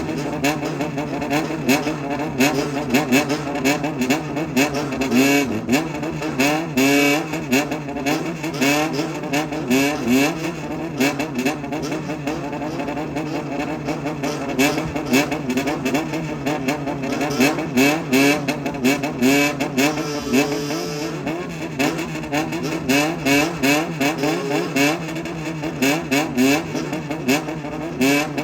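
Honda CBX400F air-cooled inline-four through a Waltz Kikai exhaust, revved in a low-rpm 'call': quick rhythmic throttle blips, each a short rise and fall in pitch, repeated over and over.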